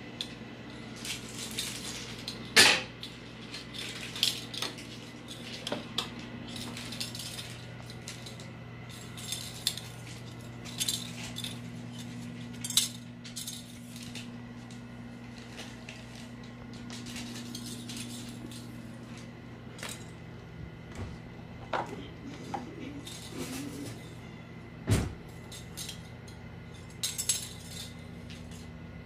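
A plastic spoon clattering and skittering across a tiled floor as kittens bat it about: irregular clicks and rattles, the loudest about two and a half seconds in and again near twenty-five seconds. A steady low hum runs underneath.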